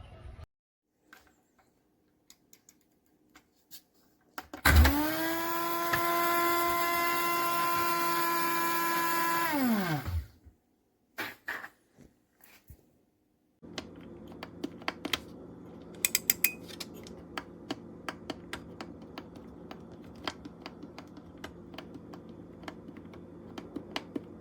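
A small electric motor, as in a blade coffee grinder, spins up quickly to a steady whine about five seconds in, runs for about five seconds and winds down. Scattered clicks follow, then a steady low hum with irregular ticking and rattling.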